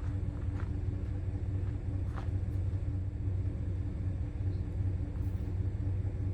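A vehicle's engine running steadily at low speed while towing a trailer, heard from inside the cab: a low rumble with a steady hum.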